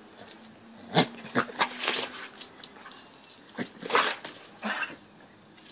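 Staffordshire bull terriers making short vocal noises: a quick cluster about a second in and a few more around four seconds in.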